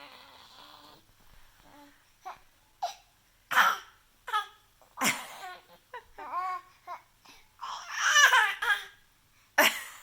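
Baby fake crying and coughing: a string of short, sharp cough-like bursts broken up by whiny, wavering cries. The longest and loudest cry comes near the end.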